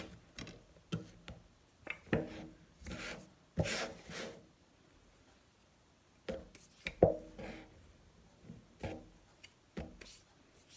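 Wooden rolling pin being rubbed by hand and rolled over dough on a wooden cutting board: scattered short rubbing and scraping strokes with a few light knocks of wood on wood, the sharpest about seven seconds in, and a quiet pause in the middle.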